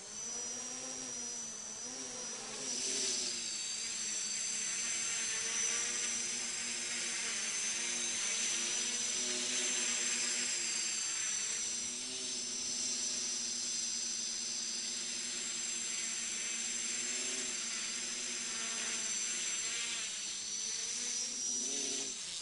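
Small FPV quadcopter's electric motors and propellers buzzing in flight, their pitch rising and falling with the throttle, over a steady high-pitched whine. It stops abruptly near the end.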